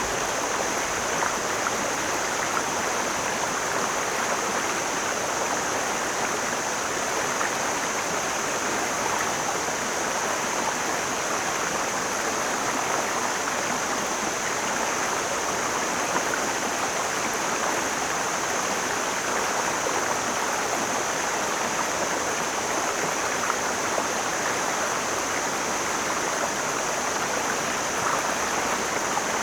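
Mountain stream flowing and splashing over rocks: a steady, even rush of water, with a steady high-pitched hiss above it.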